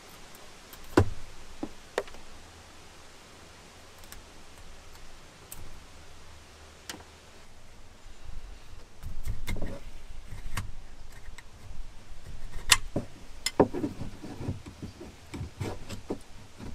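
Metal hand tool clicking and scraping against the engine's exhaust port flange as the old exhaust gasket is picked off. A few scattered sharp clicks come first, then a denser run of scraping and tapping from about nine seconds in.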